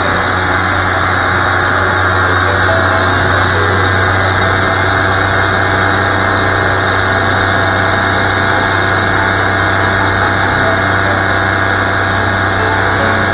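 Paramotor's two-stroke engine and propeller running steadily in cruise flight: an unbroken drone with a constant rush of air over the microphone.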